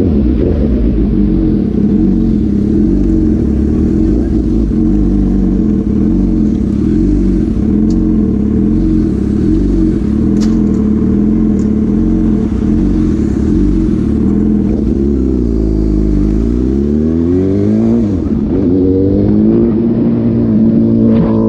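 Suzuki GSX-S750's inline-four running through an SC-Project exhaust with the dB killer removed, held at steady revs on the move. Near the end the revs drop and climb back up twice as the throttle is closed and reopened.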